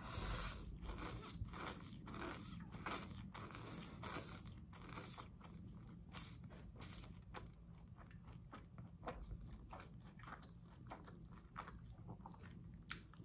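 Close-miked eating of spaghetti with Italian sausage: a slurp of noodles at the start, then chewing with wet mouth clicks and smacks, several a second.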